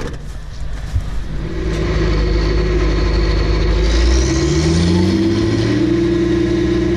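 A large engine running, revving up midway with its pitch rising over a second or two, then holding steady at the higher speed.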